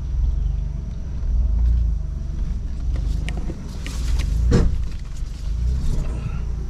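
2021 Ford Bronco crawling over a rough dirt trail in four-low, a steady low rumble of drivetrain and tyres. About four and a half seconds in, the underbody hits the ground with one loud, big scrape, a sign of too little ground clearance.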